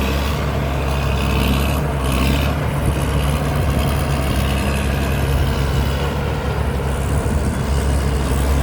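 Cummins diesel engine of a combine harvester running steadily with a deep, even drone.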